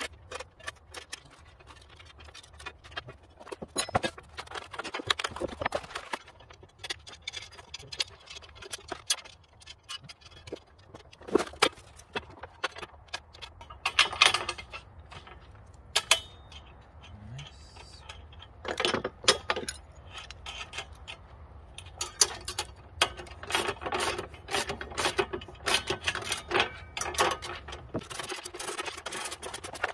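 Metal hardware clinking and clanking: steel bolts, nuts and brackets handled and fitted while a bandsaw mill frame is bolted together, in irregular clicks and knocks with denser runs of rapid clicking in places.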